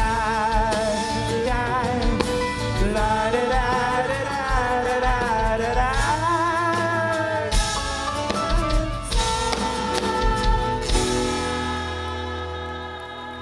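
Live band playing: a male singer with a wavering vibrato over acoustic guitar, keyboard and drums. About eleven seconds in the drum hits stop and a final held chord rings out and fades as the song ends.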